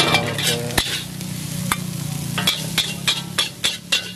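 Steel spatula and ladle scraping and clanking against a wok as fried rice is stir-fried, over a steady sizzle and a low hum. Sharp metal clanks come one after another in the last couple of seconds.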